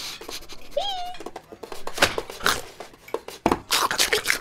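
Cartoon dog sniffing and munching food scraps off the floor: quick runs of short sniffs and crunching bites, with a brief squeaky whine about a second in.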